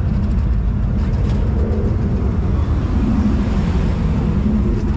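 Loud, steady low rumble of a car engine.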